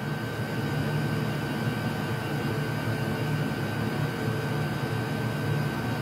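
Chinese diesel air heater running steadily on full power, its fan and burner giving an even rushing noise with a constant low hum and a thin high whine.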